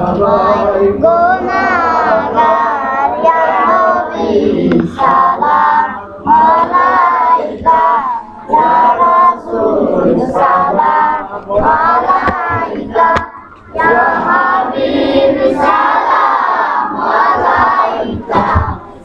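Children singing a song together, held notes in phrases with short pauses between them.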